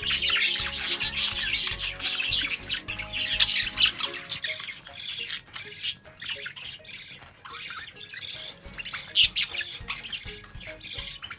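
Budgerigars chattering and warbling in quick, high chirps, densest through the first few seconds and again about nine seconds in, over background music.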